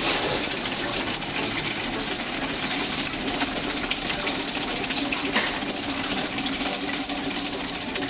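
Water gushing from a hose into a plastic-bottle water turbine and splashing against its spinning paddle wheel. Under it runs a steady whirr from the turning shaft and the small washing-machine motor it drives as a generator.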